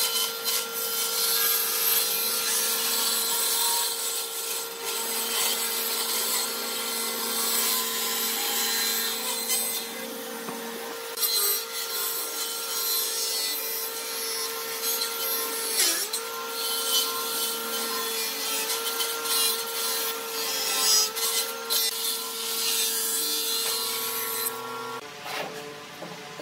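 Power tool working wood: a steady motor whine under rough rasping of cutting or abrading, with a few sharp knocks. The sound changes shortly before the end.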